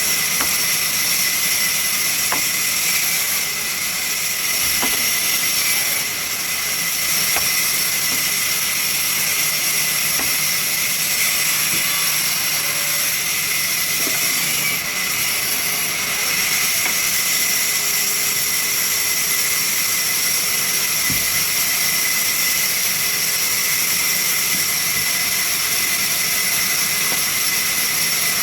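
Sawmill saw machine running steadily, cutting local shisham (Indian rosewood) into leg blanks: a loud, continuous high hiss with a steady whine, dipping briefly a few times.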